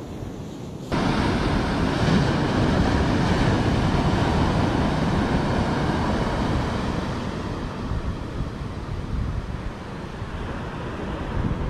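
Wind buffeting the microphone over the wash of surf on a beach, a steady rushing noise that jumps suddenly louder about a second in.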